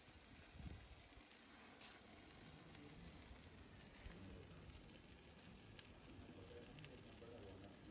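Faint sizzling and crackling of hoof horn scorching under a hot horseshoe during hot fitting, with a few light clicks.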